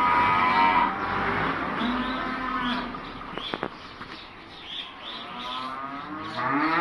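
Dairy cows mooing: a long call at the start, a lower held moo a couple of seconds in, and a rising moo near the end. Small birds chirp faintly throughout.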